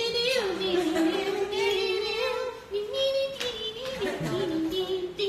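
One high voice singing a melody in long held notes, with no accompaniment evident.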